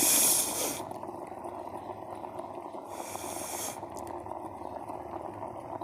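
Two deep breaths drawn in over an electric steam inhaler, about three seconds apart, with the steamer's water boiling steadily underneath.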